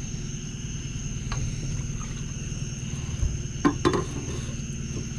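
Boat motor idling with a low, steady hum, under the constant high shrill of night insects. A brief grunt-like voice sound comes about two-thirds of the way through.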